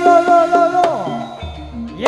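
Live jaranan dance music: a loud held melody note that slides downward about halfway through, over repeated percussion strokes.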